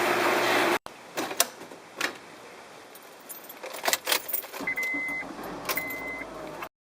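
A loud rush of hiss that cuts off abruptly, then scattered clicks and jangling like keys being handled, and two short electronic beeps of the same pitch about a second apart near the end.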